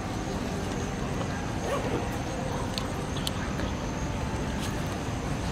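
Steady low rumbling background noise, with a faint steady high tone and a few short ticks.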